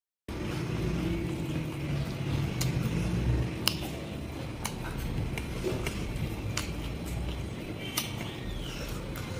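Close-up eating sounds of a man chewing rice and curry eaten by hand, with sharp wet mouth clicks and smacks about once a second over a steady low rumble. The sound cuts in abruptly just after the start.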